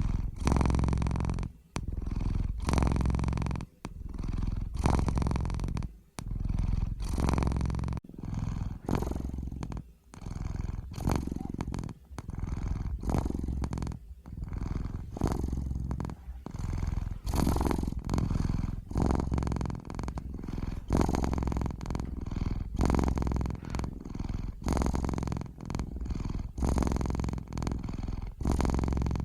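Domestic cat purring close up, a steady rumble that swells and dips with each breath, about one cycle a second.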